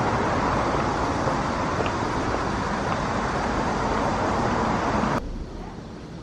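Steady hiss of street traffic noise, which cuts off abruptly about five seconds in, leaving a quieter outdoor background.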